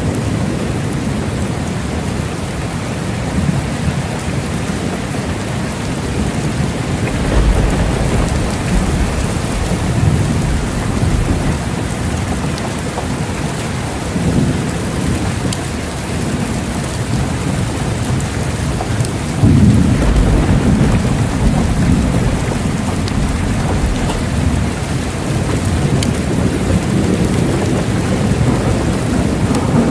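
Steady rain with thunder rolling in the background. Low rumbles swell about seven seconds in and again around twenty seconds.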